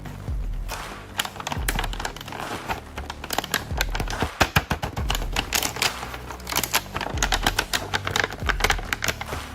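Background music with a steady bass beat, mixed with dense clicking and crinkling of plastic being handled.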